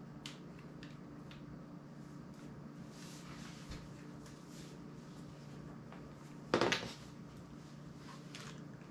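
Handling of old mobile phones and a charging cable on a tabletop: small plastic clicks, then one louder clatter about two-thirds of the way through as a phone is set down, over a low steady hum.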